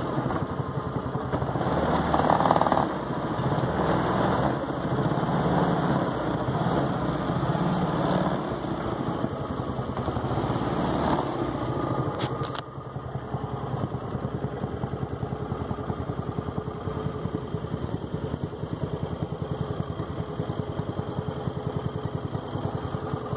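Small Mokai motorized-kayak engine running at low throttle. About halfway through it drops to a quieter, more even idle.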